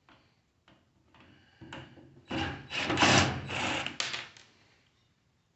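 Cordless drill-driver run in about four short bursts, backing screws out of a microwave's fan-assembly housing, with a few light clicks and taps of metal before it.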